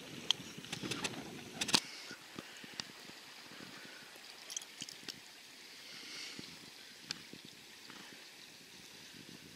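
Fast-flowing river water running steadily, with scattered faint clicks. A low rumble stops abruptly about two seconds in.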